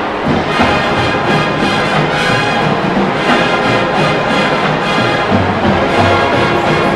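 College marching band playing, led by its brass section.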